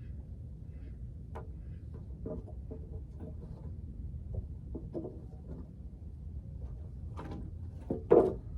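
Scattered wooden knocks and clatters of form boards being handled and set in place, with one heavy knock near the end, over a steady low rumble.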